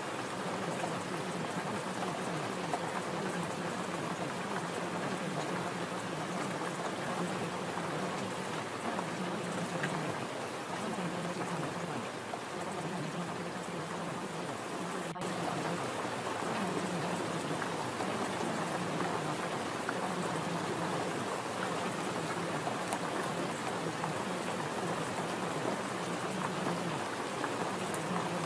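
Steady recorded rain: an even hiss of falling rain, with a momentary dropout about halfway through.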